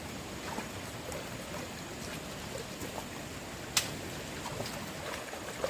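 Steady rush of flowing water, with small scattered ticks and one sharp click a little before the end.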